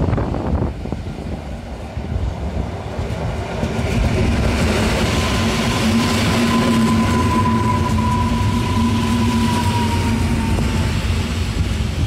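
Polregio EN57-family electric multiple unit running in along the platform, its wheels rolling on the rails. It gets louder about four seconds in as it draws level. From about five seconds in to near eleven seconds a steady high whine carries over the rolling noise, sinking slightly in pitch.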